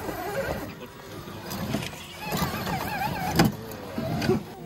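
Electric motor and geared drivetrain of a scale RC rock crawler whining, its pitch wavering with the throttle as it climbs over rock. There is a sharp knock about three and a half seconds in.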